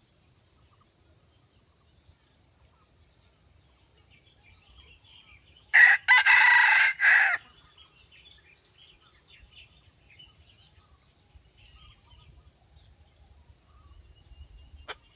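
Red junglefowl rooster crowing once, a short crow of about a second and a half in three parts. Faint small-bird chirps are scattered around it, and there is a single sharp click near the end.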